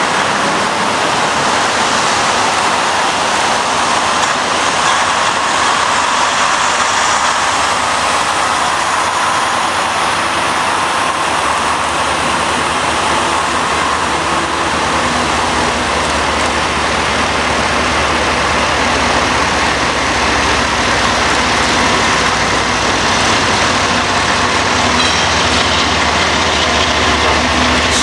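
Steady road traffic as semi-trucks and cars pass on a busy street, with the low engine rumble of an approaching GE ES44AC diesel locomotive growing from about halfway through.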